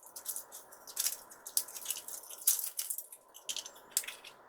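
Plastic toy packaging being opened by hand: irregular crinkling and crackling of a wrapper, with light rattles from a plastic capsule.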